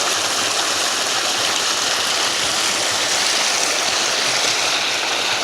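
Steady, loud rush of fast-flowing water at a rain-swollen waterfall and stream, close to the microphone.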